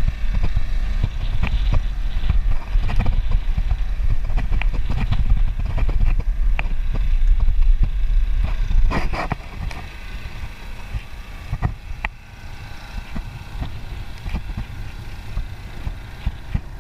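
Wind rumbling on the microphone of a moving bicycle, with scattered clicks and rattles from the bike. The rumble eases off a little past halfway.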